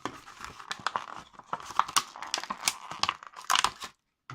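Packaging being handled, crinkling and crackling in quick irregular bursts, stopping just before the end.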